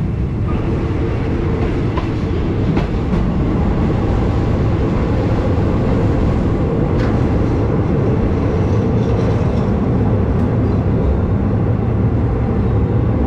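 Passenger train carriage running along the track: a steady, loud rumble of wheels and carriage, with a few faint clicks.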